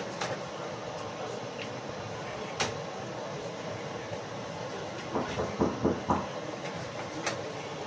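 Knife knocking on a cutting board as sausage is cut up: a few sharp single clicks and a quick run of knocks about five to six seconds in, over a steady hiss.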